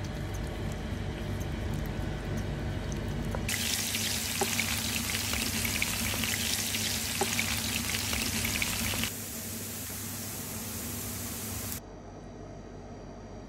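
Sliced onions sizzling in hot oil in a frying pan, a steady hiss with small crackles. It starts abruptly about three and a half seconds in and drops off suddenly about nine seconds in, with quieter pan sound on either side.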